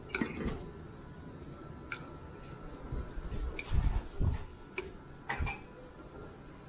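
Metal fork clinking and scraping against a ceramic plate while twirling noodles: a handful of sharp, scattered clicks, with a few dull thumps against the table partway through.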